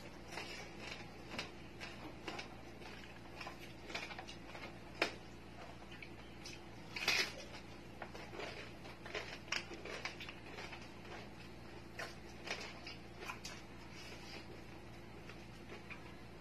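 Eating sounds: chewing of crispy lechon ulo (roast pig head) skin and fingers picking at the meat and rice, a string of faint irregular crackles and clicks. A sharper click comes about five seconds in and a louder crackle about seven seconds in.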